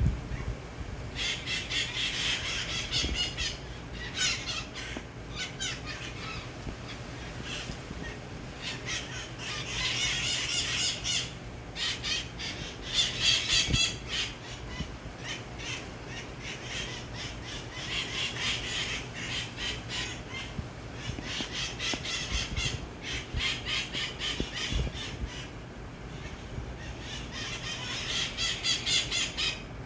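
Green parrots screeching and squawking in bouts of rapid, repeated harsh calls, each bout lasting a few seconds with short lulls between.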